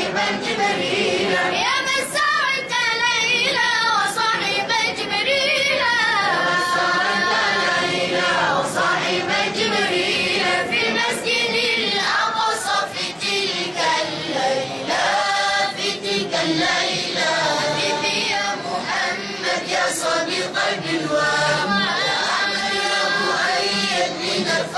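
Children's choir singing an Arabic sholawat unaccompanied, with ornamented, wavering held notes.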